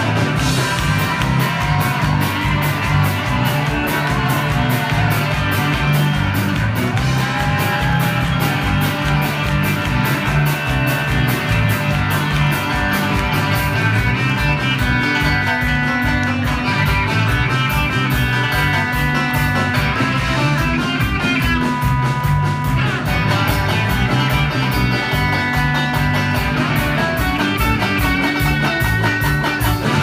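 A live band playing an instrumental stretch: banjo with electric guitars, bass guitar and drums, over a steady beat.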